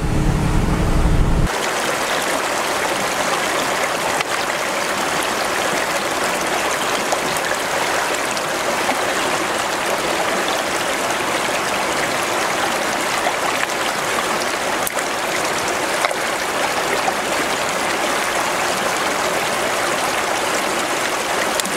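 A shallow, rocky creek running steadily over stones. For the first second and a half, before it, there is the low rumble of a truck driving on a gravel road, heard from inside the cab.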